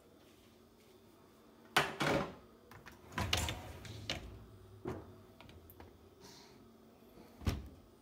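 Miele dishwasher's wire racks being slid back in, with several metallic knocks and rattles, then the dishwasher door shut with a single loud thunk near the end.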